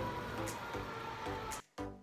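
Noise from outside, with a slowly falling siren-like tone, cuts off abruptly about 1.6 s in. Background music follows, with separate notes struck about every half second.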